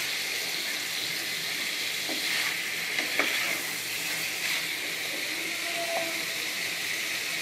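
Fried chicken pieces and potatoes sizzling in a thick spice gravy in a non-stick frying pan, stirred and turned with a spatula. The sizzle is a steady hiss, with a couple of light spatula knocks against the pan about two and three seconds in.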